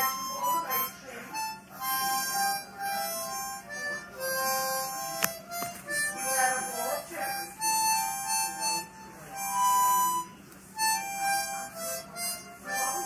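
Harmonica playing a tune in a run of separate notes, some short and some held for about a second.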